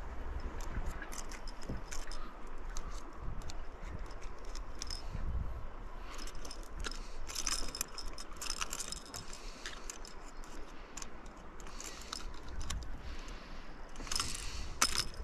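Light metallic clicking and jingling of a Kingfisher Mantis surface lure's treble hooks and metal parts as they are handled, scattered throughout, with busier clusters about halfway through and near the end.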